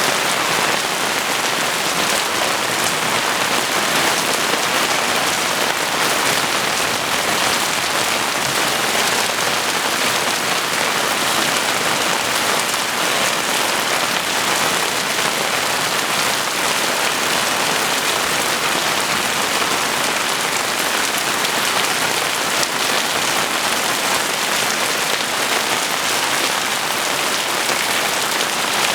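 Heavy rain falling steadily, a dense, even hiss of drops with no let-up.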